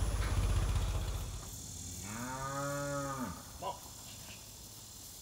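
A low steady rumble fades out about a second in. Then one of the cattle gives a single moo, about a second long, rising and then falling in pitch.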